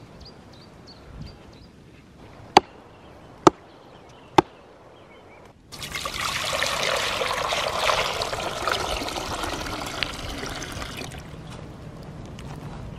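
Three sharp knocks on wood about a second apart, then water poured from a metal can into a steel pot for about five seconds, splashing loudly as the pot fills, before it stops.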